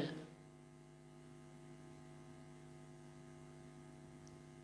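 Faint, steady electrical mains hum, made of several even tones, with no other sound.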